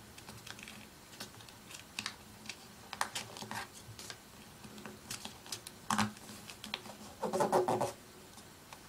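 A sheet of paper being folded and creased by hand: scattered scratchy rustles and small clicks as the paper is bent and pressed flat. A brief voice sound comes about seven seconds in.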